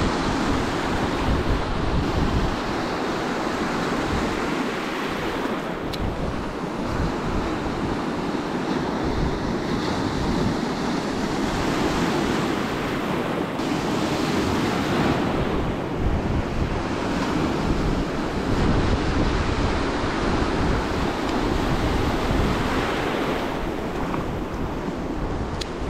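Small sea waves breaking and washing over a rocky shore close by, swelling and easing wave after wave, with wind rumbling on the microphone.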